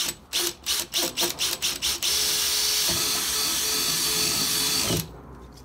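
Cordless drill boring mounting holes in a Komaalu block-off plate. It first runs in short quick bursts, about five a second, then runs steadily for about three seconds and stops abruptly.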